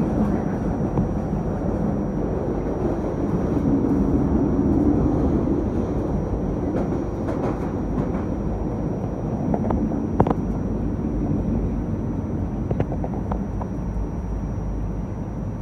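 Cleveland RTA Green Line Breda light rail car running along the track with a steady rumble. Scattered sharp clicks from the wheels on the rail come through in the second half, the loudest a single knock about ten seconds in.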